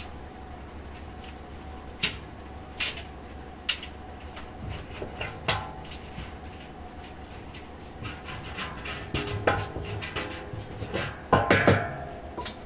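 Sharp knocks and clatter of objects being handled inside a metal drum steam wax melter: a few separate knocks, then a busier run of clatter that is loudest a little after eleven seconds in.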